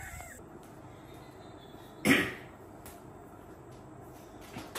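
A rooster's crow trails off just after the start; about two seconds in comes one short, loud animal cry.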